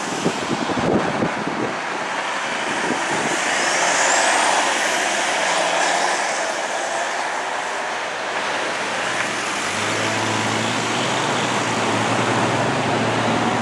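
Fire engine's diesel engine driving off down the street among passing traffic, a steady rushing noise that swells about four seconds in. From about ten seconds in, a low engine hum holds steady underneath.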